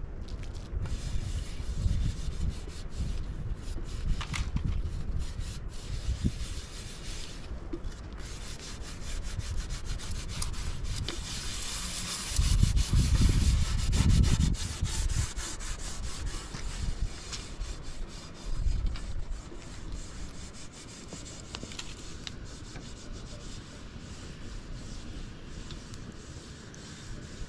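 Continuous rubbing and scraping sounds, with low rumbling gusts of wind on the microphone, the strongest about halfway through.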